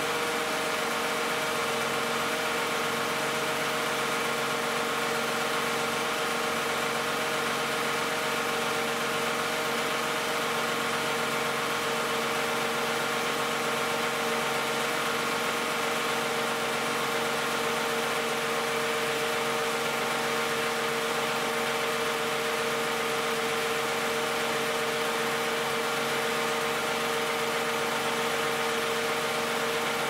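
2010 Toyota Camry's 2GR-FE 3.5-litre V6, at 161,500 miles, idling steadily as it warms up after a cold start.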